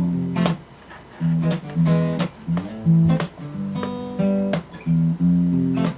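Acoustic guitar strumming chords in an instrumental gap of a slow ballad, with a strong low note under each chord and short pauses between strums.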